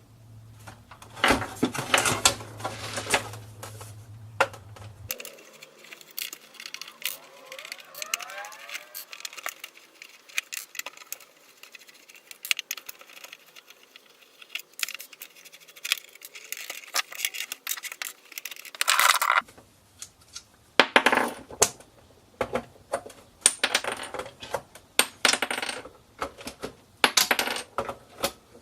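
Hands taking apart a Jadco clock radio cassette player: many clicks, knocks and scrapes of plastic and metal parts, with small hard pieces clattering onto a surface. The knocks come in louder clusters, with a brief squeak about eight seconds in.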